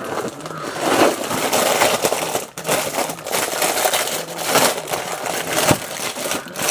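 Packaging crinkling and rustling continuously as a boxed FM radio is unpacked by hand, with many small irregular crackles.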